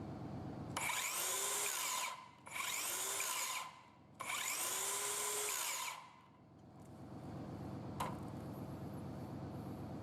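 Hitachi C18DBAL cordless 165 mm circular saw running free in three short bursts, each spinning up with a rising whine and winding down as the trigger is let go. One sharp click follows near the end.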